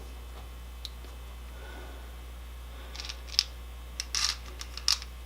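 A few light clicks and a short rustle as jelly beans are handled and set into a chocolate nest, over a steady low hum.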